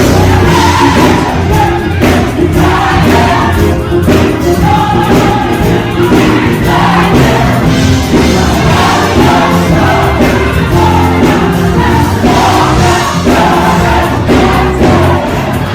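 Gospel choir singing over band accompaniment with a strong bass line, steady and loud throughout.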